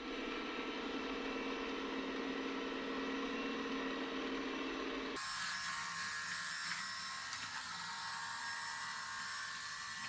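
Xiaomi X10+ robot vacuum-mop running with a steady motor whine; about five seconds in the sound changes abruptly from a lower hum to a higher, hissing fan sound.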